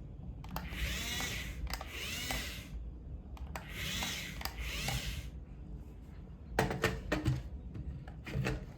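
Toy RC excavator's small electric drive motors and gears whirring in two runs of about two seconds each as it is driven forward, the pitch sweeping up and down as each run starts and stops. A few sharp clicks or knocks follow near the end.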